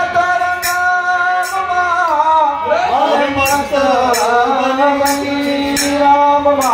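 Men singing a Gujarati devotional bhajan (santvani) with long, bending held notes over harmonium accompaniment.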